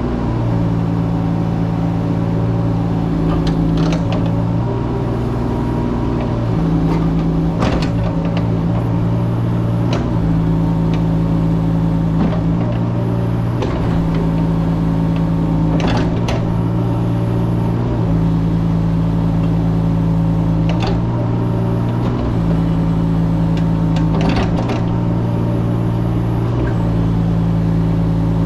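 Mini excavator engine running steadily under hydraulic work, its note stepping up and down every few seconds as the load changes while grading. About half a dozen sharp knocks are scattered through it.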